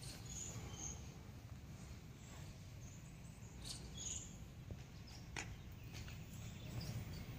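Quiet outdoor ambience: scattered faint, high bird chirps over a steady low background noise, with a couple of brief clicks.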